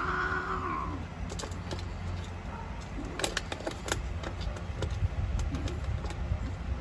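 A female long-haired tabby cat gives one yowl of about a second while the male mounts her in mating, then a few sharp clicks follow around the middle over a low steady rumble.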